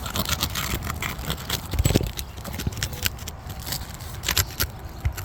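Asphalt shingle tabs being pried up, their sealant strips breaking: a run of short scrapes, clicks and crackles as the tabs resist, with a low thump about two seconds in.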